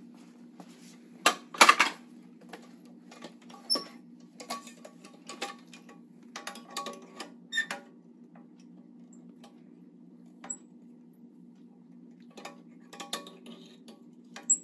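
Metal clicks and clanks from a wheelchair's swing-away footrest being fitted back onto the chrome frame. The loudest clatter comes about a second and a half in, more scattered clicking follows through the middle, and it picks up again near the end after a short lull.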